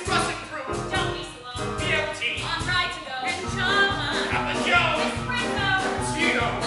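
A small vocal ensemble singing a Broadway show tune with instrumental accompaniment, the accompaniment keeping a steady beat.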